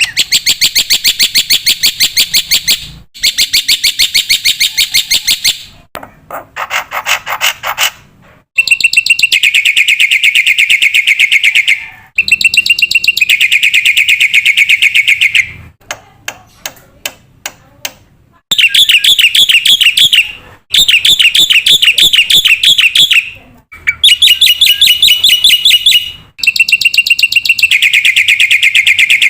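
Black-winged myna (jalak putih) singing: loud, very rapid trilled phrases a few seconds long, broken by short pauses, with a sparser run of quick clicking notes partway through.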